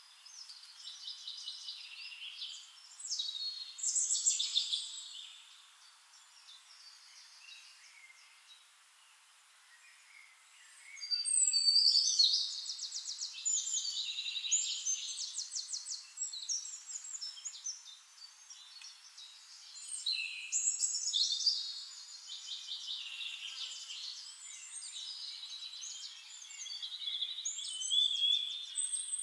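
Songbirds singing: rapid high trills and warbled phrases coming in bursts of several seconds, with a lull of a few seconds about a third of the way in.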